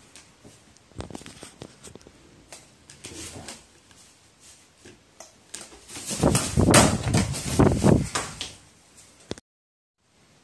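Crow flapping its wings in a loud flurry lasting about two and a half seconds, after a few scattered taps and rustles.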